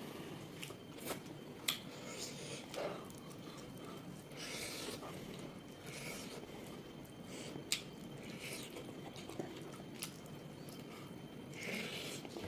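A person eating: faint chewing and mouth smacks, with scattered sharp clicks and a couple of short hisses.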